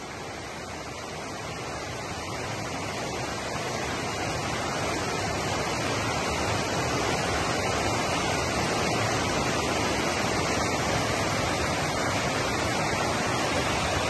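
Whitewater river rapids rushing over rocks: a dense, even rush of water that grows louder over the first several seconds, then holds steady.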